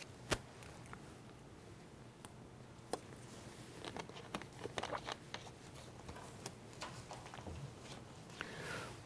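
Quiet room tone with a low steady hum, broken by a few faint sharp clicks and soft rustles from a presenter handling things at a lectern, the clicks clustering around four to five seconds in as the slide advances.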